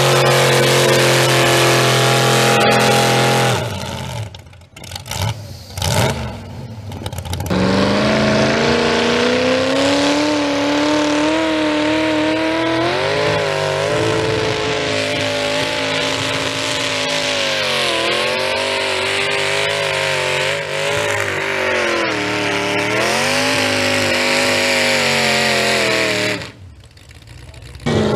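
Modified pickup truck engines running hard at high revs while pulling a weight sled, the pitch wavering and dipping now and then as the engine loads up. The engine sound breaks off briefly about four seconds in and again near the end.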